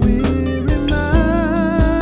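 Neo-soul music with a steady drum beat and bass. A held, wavering melody line comes in about a second in.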